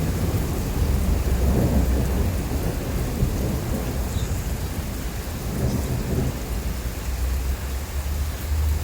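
Steady rain with a low rumble of thunder underneath, swelling twice.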